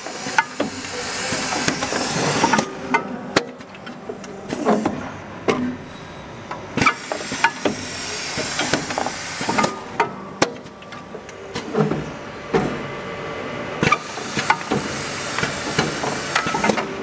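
Thimonnier SF10 doypack filling and capping machine running: a steady series of metallic clacks and knocks from its moving parts, with long bursts of compressed-air hissing about every six to seven seconds.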